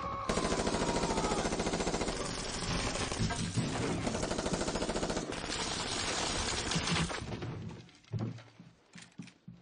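Sustained automatic rifle fire: a rapid, unbroken stream of shots for about seven seconds, then it breaks off into a few scattered shots near the end.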